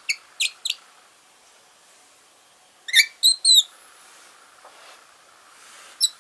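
Fischer's lovebird chirping softly in its sleep (sleep-talk): short high chirps, a pair near the start, a louder run of three about halfway through, and a single chirp near the end.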